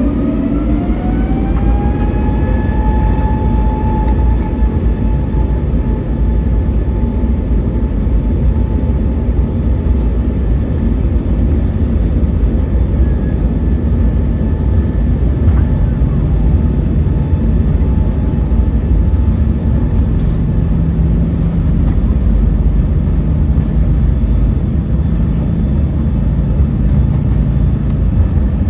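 Airbus A320neo's Pratt & Whitney PW1127G geared turbofans spooling up to takeoff thrust, heard from inside the cabin: a rising whine that levels off after about three seconds. It then holds steady over a loud, continuous rumble from the takeoff roll.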